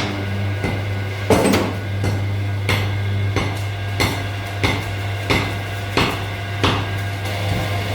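Hammer striking metal in an even rhythm, about one ringing blow every two-thirds of a second, over a steady low machine hum.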